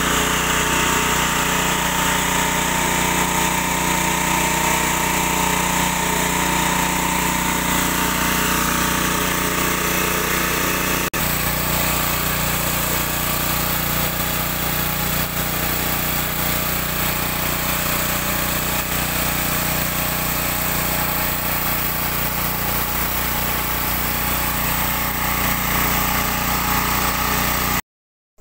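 Small petrol engine running steadily at constant speed, driving the fan of a rice winnowing machine. The sound cuts off suddenly just before the end.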